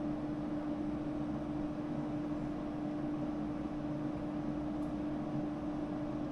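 Steady mechanical hum of running air-conditioning equipment, with one constant pitched tone over an even low drone.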